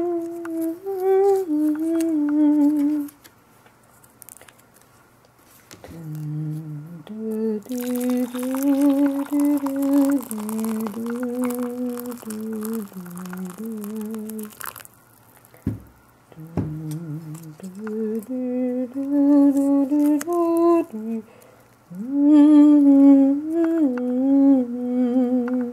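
A person humming a slow, wavering tune in several phrases with short breaks between them. From about eight to fifteen seconds in, water is poured into a teacup, a steady splashing hiss under the humming, followed by two soft knocks.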